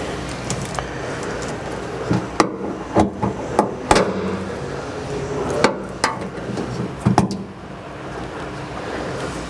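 Sharp plastic clicks and knocks from wiring harness connectors and clips on a car tailgate being handled, unplugged and plugged, about eight in a cluster through the middle of the stretch over a steady low hum.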